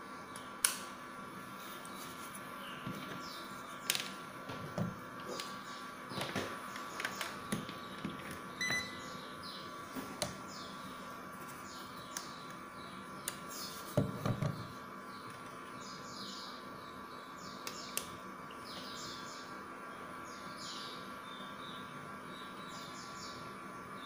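Repeated short high chirps over a steady hum, with a few sharp knocks, the loudest about fourteen seconds in, as plastic humidifier parts are handled.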